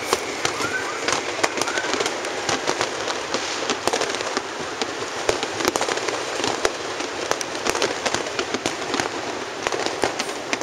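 New Year's fireworks and firecrackers going off all over the city: many irregular sharp bangs and pops over a continuous crackling din, with a few short whistles in the first two seconds.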